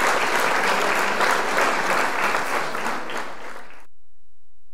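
Applause: a crowd clapping steadily, cutting off abruptly near the end.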